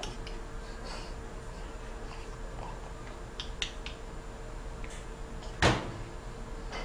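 Small splashes and drips of water as a baby moves in a plastic bucket of water, over a faint steady hum. About two thirds of the way in comes one short, louder thump, the loudest sound here.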